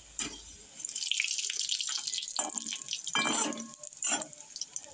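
Hot oil sizzling and crackling in a metal wok as fried dough sticks are scooped out with a wire skimmer. There are scrapes and clinks of the skimmer against the wok, loudest a little past the middle.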